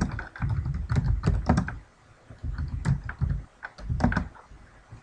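Typing on a computer keyboard: quick runs of keystrokes in three bursts with short pauses between, stopping shortly before the end.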